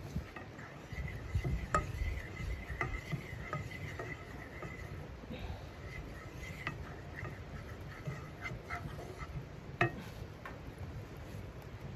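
A wooden spatula scraping and stirring melting butter around a frying pan, with scattered small scrapes and clicks. There are two sharper taps, about two seconds in and near the end, where the spatula is knocked against and laid on the pan.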